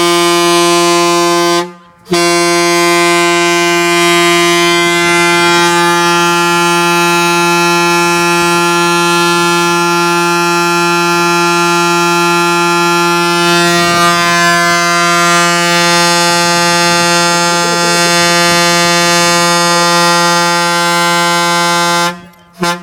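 Diesel truck's air horn blown in one long, steady, loud blast on a single low note, cut off briefly about two seconds in and then held for some twenty seconds.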